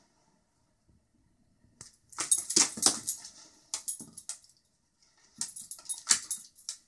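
Jangling of a Shiba Inu's collar tags with sharp clicks of claws and a small apple knocking on a tile floor as the dog paws and noses at it, in two bursts about two seconds and five seconds in.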